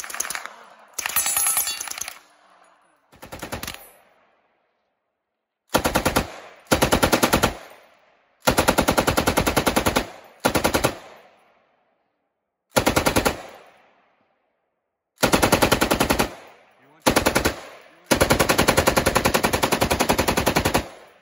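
Bursts of fully automatic gunfire. First come three short bursts from a suppressed submachine gun. After a short gap, a tripod-mounted belt-fed machine gun fires eight bursts of rapid, evenly spaced shots, from about half a second to nearly three seconds long.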